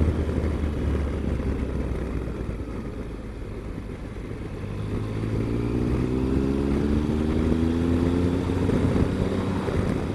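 Triumph Explorer's three-cylinder engine running under a steady rush of wind, easing for a moment, then rising steadily in pitch from about halfway as the motorcycle accelerates out of the bend.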